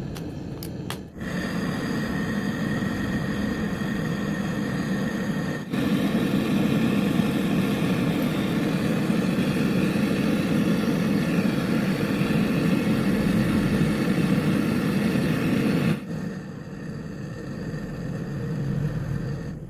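Steady mechanical running noise with a hum and several held tones. It starts about a second in, gets abruptly louder about six seconds in and drops back about sixteen seconds in.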